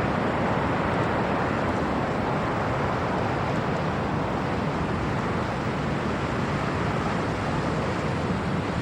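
Steady roar of storm wind and heavy surf during a nor'easter blizzard, the wind buffeting the microphone.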